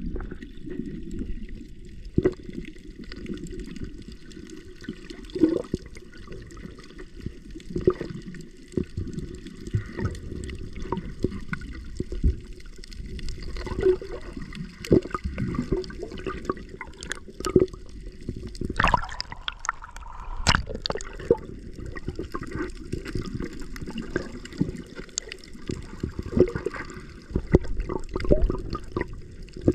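Muffled water noise heard through a submerged camera: a low, steady rush with many scattered knocks and clicks, and a brighter, louder swirl about nineteen to twenty-one seconds in.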